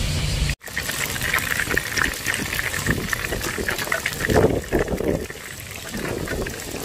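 Flour-coated horse mackerel pieces deep-frying in hot oil: a steady bubbling sizzle full of small crackles.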